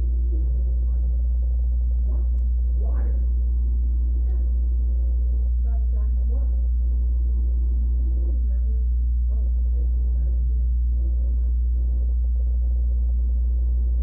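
A loud, steady low hum, with faint, indistinct voices underneath.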